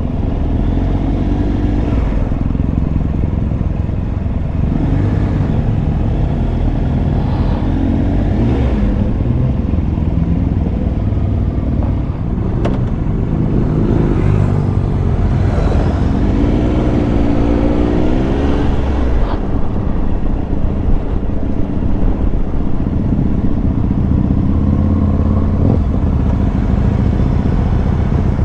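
Triumph Tiger Explorer 1200's three-cylinder engine running as the motorcycle is ridden, under steady heavy wind noise, with the engine note rising and falling a few times.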